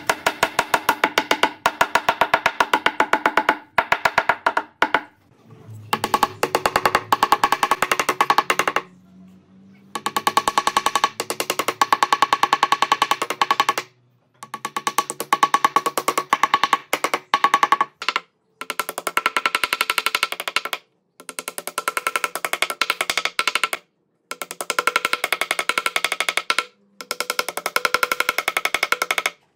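Hammer tapping thin wooden strips down into glued slots in a pine slab: rapid runs of sharp wooden knocks, several a second, with a ringing pitch from the wood. The runs stop abruptly several times and start again.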